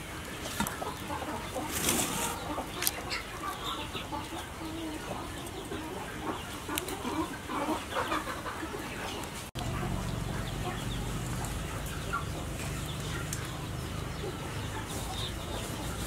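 Chickens clucking, with metal tongs clicking against a stainless steel bowl while cooked fish is picked apart. A low steady rumble comes in abruptly about halfway through.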